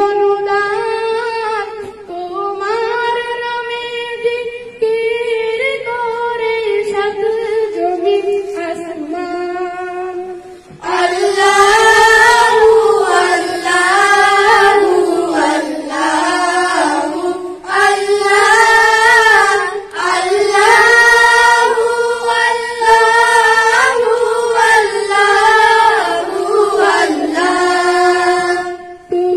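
Schoolchildren singing a Bengali Islamic gojol (ghazal) a cappella into a microphone, with no instruments. A lighter voice carries the melody at first; about eleven seconds in, the singing becomes louder and fuller as more voices join.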